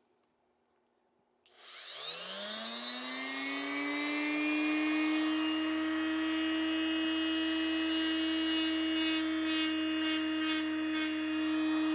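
A small electric piston-ring end-gap grinder starts about a second and a half in, winding up with a rising whine to a steady high hum. From about eight seconds in there are seven short gritty bursts as a ring end is touched to the wheel, taking a little more off to widen a ring gap that is too tight.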